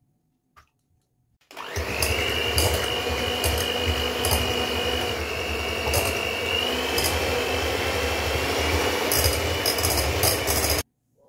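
Moulinex electric hand mixer beating raw eggs in a bowl. The motor starts about a second and a half in with a quick rising whine, runs steadily with a high whine that dips slightly midway, and cuts off suddenly near the end.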